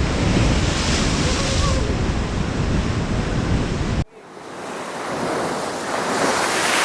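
Wind buffeting the microphone outdoors, a steady rushing noise with a heavy low rumble. It cuts off abruptly about four seconds in, then builds back up to a brighter hiss.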